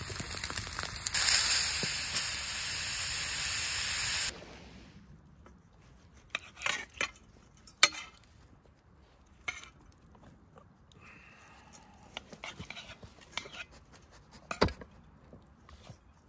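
Food frying in a pan, a loud steady sizzle that grows louder about a second in and cuts off suddenly about four seconds in. After that it is quiet, with scattered small clicks and knocks.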